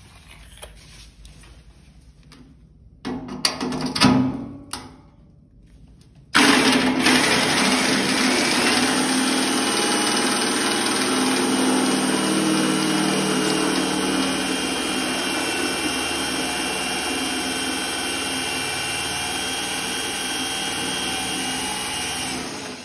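Power drill running a step drill bit through a 1.0 mm stainless steel sink, enlarging a pilot hole: a steady motor whine over metal grinding that starts abruptly about six seconds in and runs until it fades at the end. Before it, a few knocks and a short burst between about three and five seconds.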